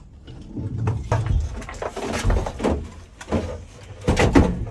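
Irregular metal clunks and knocks, with some scraping, from an engine hanging on a strap from a wooden beam across the engine bay as it is shifted loose; the loudest clunks come in a cluster near the end.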